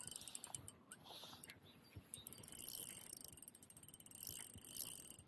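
Spinning fishing reel ticking rapidly, in a short spell at the start and a longer one from about two seconds in.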